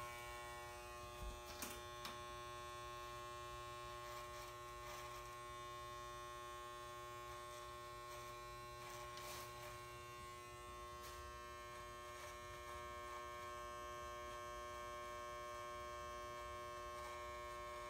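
Corded electric hair clippers running with a steady buzzing hum while lining up the hairline.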